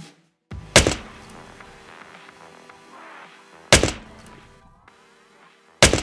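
Three loud, sharp thunks spaced two to three seconds apart, over background music.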